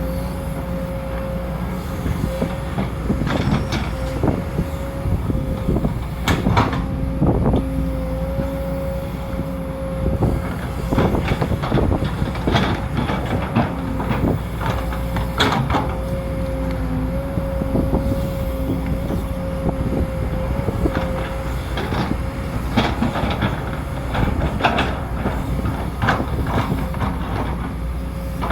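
Sumitomo SH210 hydraulic excavator digging: the engine runs steadily under a continuous whine, with repeated knocks and clanks from the bucket and arm working. The whine drops out about three quarters of the way through while the knocks carry on.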